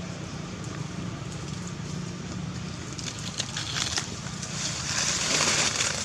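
Crackling and rustling over a steady low hum. The crackles start about halfway and grow to a louder hissing rush near the end.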